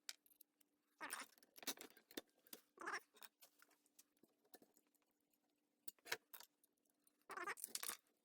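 Faint, scattered clicks and scrapes of small metal parts and tools being handled, over a faint steady hum.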